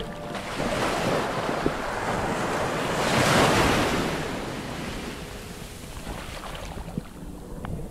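Muffled rush of moving water heard through an underwater camera housing in shallow surf, swelling to a peak about three seconds in and then fading, with a few faint clicks.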